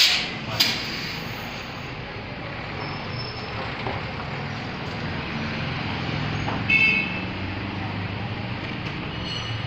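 Hot plate plastic welding machine running. A short burst of pneumatic air hiss and a click come right at the start, followed by a steady machine hum, with a brief high-pitched tone about seven seconds in.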